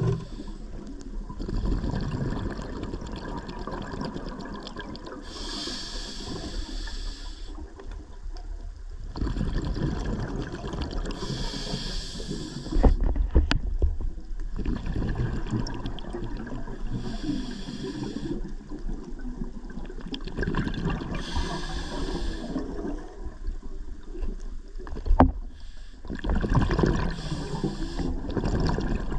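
A scuba diver's regulator breathing, heard underwater: a bubbling hiss of exhaled air about every five or six seconds, with low water noise between breaths and a couple of brief knocks.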